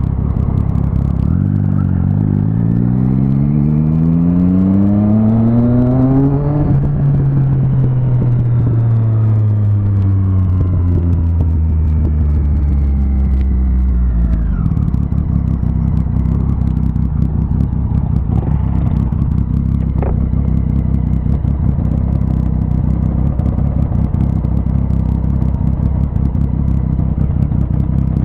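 Motorcycle engine revving up for about six seconds, then winding down as the bike slows, and settling into a steady idle about halfway through as it stops at a light.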